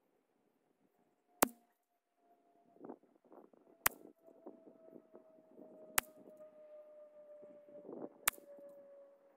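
Four shots from a .22 LR rimfire rifle firing SK Standard Plus ammunition: sharp single reports a little over two seconds apart. A faint hum, slowly falling in pitch, runs behind them.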